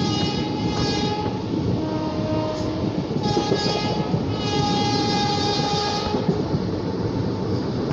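Express passenger train running at speed, with a steady rumble of wheels on the track. The locomotive's horn sounds three times as it passes through a halt without stopping: a short blast near the start, another about three seconds in, and a longer one from about four and a half to six seconds in.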